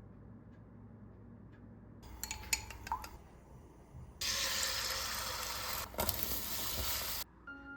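Kitchen sounds: a few clinks of dishes, then a tap running for about three seconds before it is shut off.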